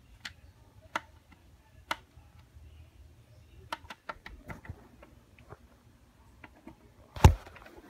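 Handling noise of the phone filming: scattered light clicks and taps while it is moved, then one loud thump a little after seven seconds in.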